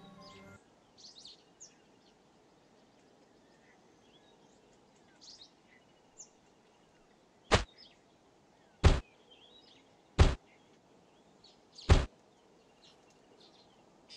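Four loud, short thumps about a second and a half apart, over a faint background of birds chirping.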